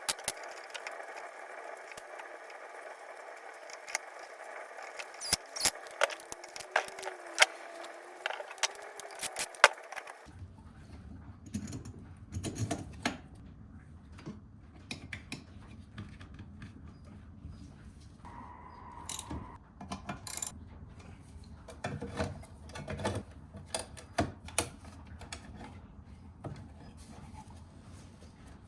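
Scattered sharp clicks and knocks of workshop tool work over a steady hum; about ten seconds in the hum stops abruptly and a low rumble takes over, with more knocks.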